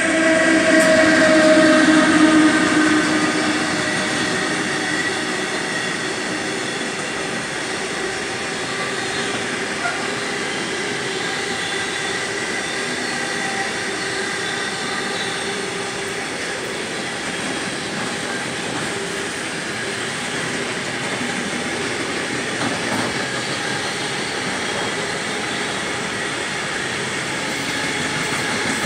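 An electric locomotive hauling an intermodal container freight train passes close by. The sound is loudest in the first few seconds as the locomotive goes past, then settles into the steady rolling noise of the container wagons.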